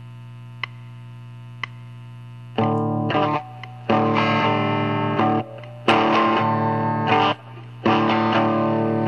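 Distorted electric guitar opening a rock song: after a steady amplifier hum with two faint clicks about a second apart, the guitar comes in about two and a half seconds in, playing chords in short phrases with brief gaps between them.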